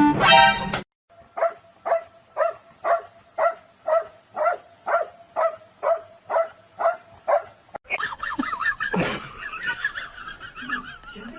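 A dog barking over and over at an even pace, about two barks a second, for some six seconds. Then a different stretch follows, with a sudden knock and a higher, wavering sound.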